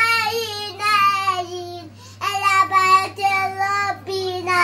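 A young girl singing solo without accompaniment, holding long steady notes, with a short pause about two seconds in.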